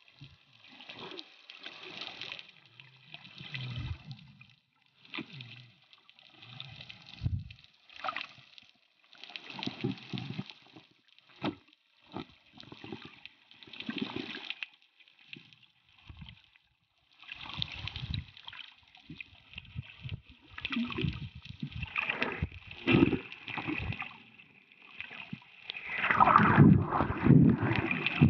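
Water sloshing and gurgling around an underwater camera as a snorkeler swims, heard through the water in irregular surges every second or two, growing louder and splashier near the end.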